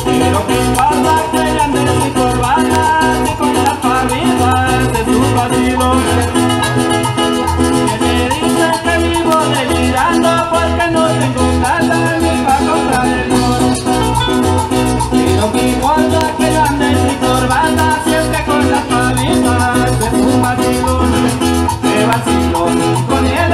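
Live Colombian merengue campesino played by a band on acoustic guitars, a lively picked and strummed tune over a steady, bouncing bass beat.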